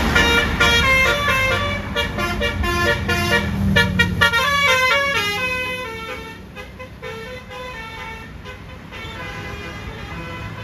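Bus telolet horn: a Basuri multi-tone air horn playing a quick melody of stepped notes, over the low rumble of the bus engine. The rumble fades after about four seconds and the horn grows fainter after about six.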